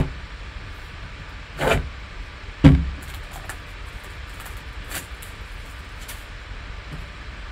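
Gloved hands handling a sealed cardboard trading-card box: two thumps as it is picked up and tipped, the second the louder, then light taps and clicks as it is turned over.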